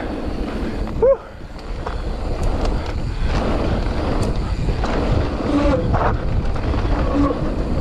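Wind buffeting the microphone and an electric mountain bike's tyres rolling and rattling over a dirt-and-gravel trail. A brief squeak rises and falls in pitch about a second in.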